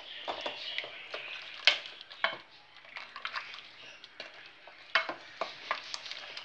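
Wooden spoon stirring a liquid mutton curry in a stainless steel pot, knocking and scraping against the pot at irregular moments, loudest about a second and a half in and again near five seconds.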